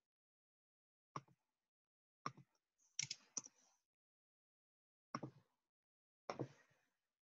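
About six sharp, separate clicks from a computer mouse and keyboard, spaced irregularly with silence between them and a quick pair about three seconds in.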